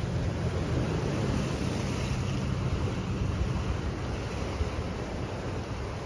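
Small ocean waves breaking and washing over the boulder riprap at the foot of a sea wall: a steady rush of surf.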